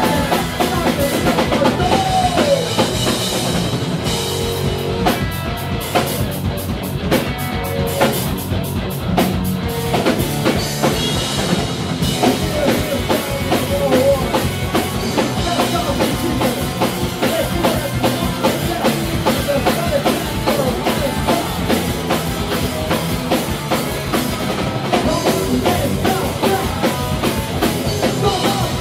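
Hardcore punk band playing live: a pounding drum kit with bass drum under loud electric guitars, continuous without a break.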